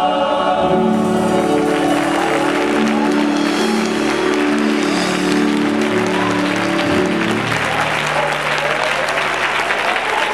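Choir and congregation applauding and cheering as the accompanying instruments hold a final sustained chord. The chord stops about seven seconds in, leaving the applause.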